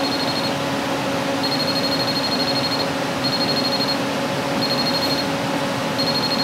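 T-Hotbox PDR induction dent-repair unit heating a dent in a steel car bonnet: a steady hum with a high electronic beep that sounds in five irregular bursts, some short and one over a second long.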